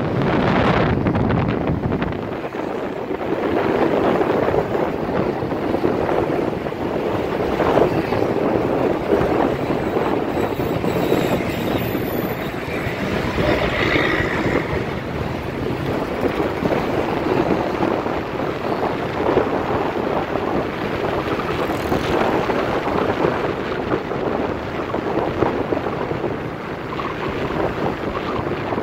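Wind buffeting the microphone while riding on a moving motorbike, with the motorbike's engine and passing traffic running underneath as a steady rush.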